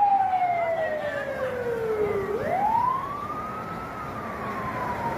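Traffic police siren wailing: its pitch slides slowly down for about two seconds, then sweeps back up and starts falling again. A second, higher siren falls alongside it in the first half.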